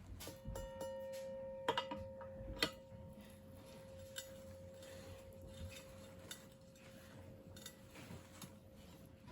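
Metal dome gong of a Safetran mechanical crossing bell, struck once and ringing with one long, slowly fading tone and its overtones. Light metallic clicks and knocks from handling the bell's parts come over it, the loudest about two seconds in.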